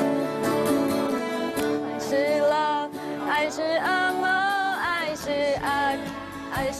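Accordion and acoustic guitar playing a tune in held chords, joined about two seconds in by singing voices.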